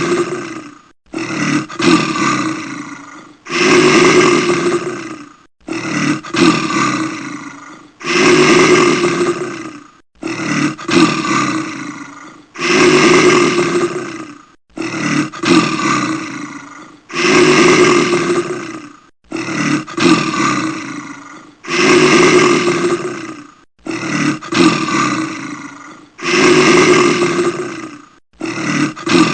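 A person in a wolf fursuit snoring very loudly. Each breath brings a long snore followed by a shorter, choppier one, repeating evenly about every four and a half seconds.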